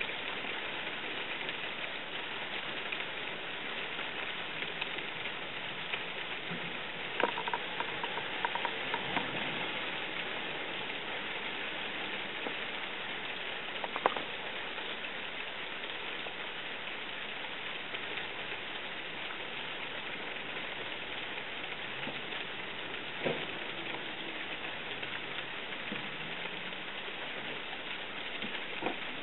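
Steady rain falling on the garden outside, a continuous even patter with a few sharper taps now and then.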